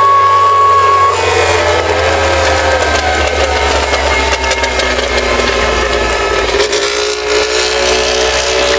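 Trackside crowd noise as a MotoGP race bike rolls slowly past, its engine running at low revs with a slowly drifting pitch. A steady high horn tone stops about a second in.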